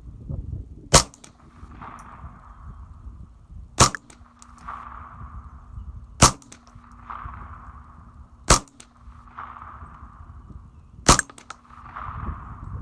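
A .22 rifle firing five single shots, about one every two and a half seconds, with Federal round-nose ammunition while a newly mounted scope is being sighted in. Wind rumbles on the microphone between the shots.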